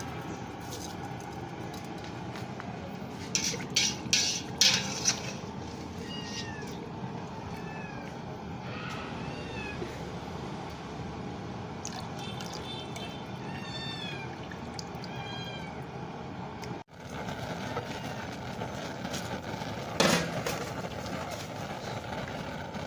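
Short high animal calls, each rising and falling in pitch, repeated many times over about ten seconds against a steady background noise. A few sharp clatters come just before the calls, and one knock comes near the end.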